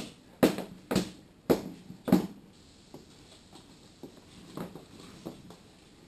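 High-heeled boots stepping on a hard kitchen floor: five sharp heel strikes about two a second, then a few fainter knocks.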